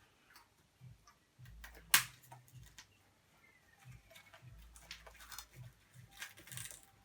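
Scattered light clicks and knocks, with one sharp, loud click about two seconds in, over faint low rumbling from handling.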